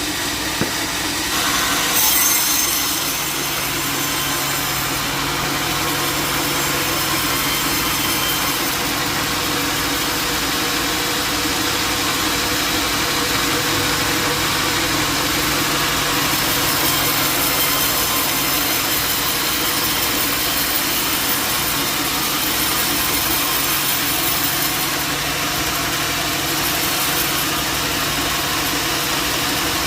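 Band sawmill blade cutting through a jackfruit log: a steady rasping hiss over the even hum of the mill's motor, briefly louder about two seconds in.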